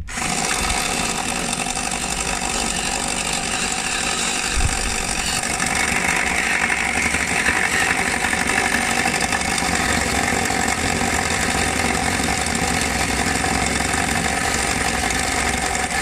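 Electric drill spinning a Henry Hoover vacuum motor's armature while a file is held against its copper commutator: a steady machine whirr with a filing rasp, scraping burnt carbon off the commutator bars. The rasp grows stronger about six seconds in.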